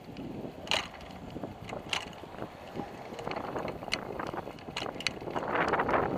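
A bicycle rattling as it is ridden: scattered sharp clicks and knocks, a second or so apart, over rolling and wind noise that grows louder near the end.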